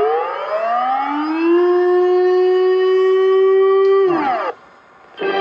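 Civil defense warning siren: its pitch climbs for about a second and a half, holds steady, then falls away and cuts off about four and a half seconds in.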